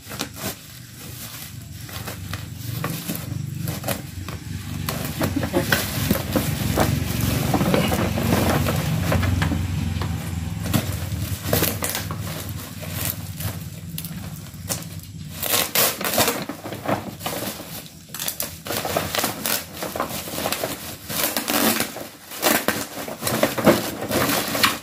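Plastic parcel wrapping crinkling and crackling as it is cut with scissors and pulled off the package, a steady run of many sharp crackles.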